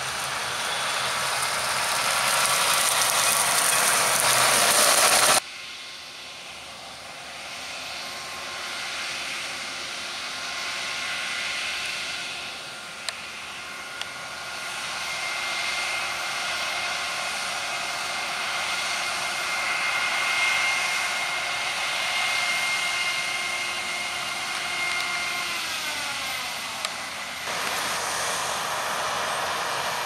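Harvest machinery in the field. First comes a loud, even rushing noise from a John Deere 6250R tractor hauling a grain trailer over stubble. After an abrupt cut, a Claas Lexion 7500 combine harvester runs steadily alongside the tractor, with a drone and a steady whine whose tones glide down near the end. A final cut brings the sound of two combines cutting the crop.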